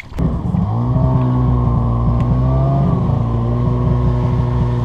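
Snowmobile engine driving along, picking up speed over the first second and then running at a steady pitch, with a brief rise and fall in revs about halfway through.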